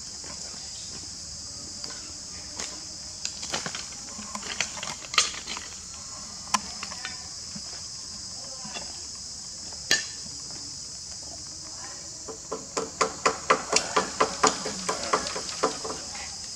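Steady high-pitched drone of insects, with sharp knocks over it. A few knocks are scattered through the first half, then a quick run of knocks comes at about four a second near the end.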